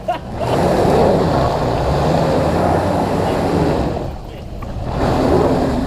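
Off-road 4x4's engine revving hard while its wheels spin through mud and water, in two surges with a short dip about four seconds in.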